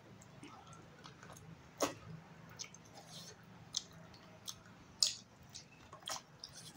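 Eating rice and curry by hand: chewing with wet mouth smacks and clicks at irregular intervals, the loudest about two seconds and five seconds in.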